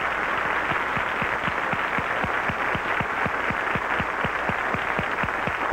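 Studio audience applauding steadily, many hand claps blending into an even clatter.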